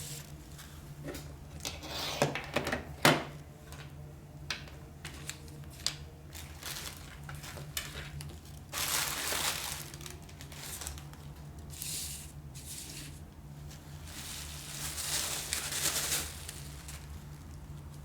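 Packaging being handled: crinkling and rustling of wrapping, with several sharp clicks and knocks early on and louder rustling passes later. A steady low hum runs underneath.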